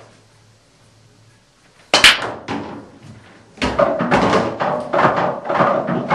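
Nine-ball break shot on a pool table: a sharp crack about two seconds in as the cue ball smashes into the rack, then balls clattering against each other and the cushions, with more knocks and rattles from about halfway through.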